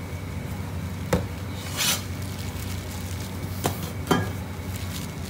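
Wonton-wrapper making in a noodle workshop: a steady low machine hum, broken by three short sharp knocks and one brief scraping rub.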